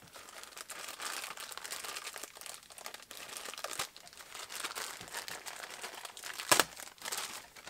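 Thin plastic packaging crinkling and rustling as a foam polishing pad is unwrapped by hand, with one sharper, louder crackle near the end.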